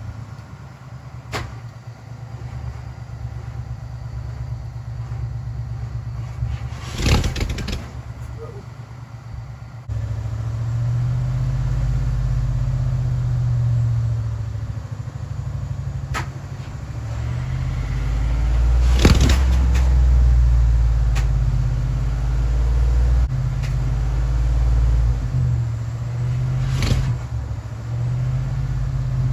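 The starter slowly cranks a 1967 Mercury Park Lane's 410 Ford FE V8 without it catching, a weak battery dragging the crank. The cranking grows louder about ten seconds in, and a few sharp knocks or clanks fall along the way.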